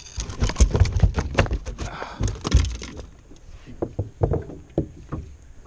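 A bowfin thrashing on a boat floor: a quick run of thumps and slaps over the first three seconds, then scattered knocks.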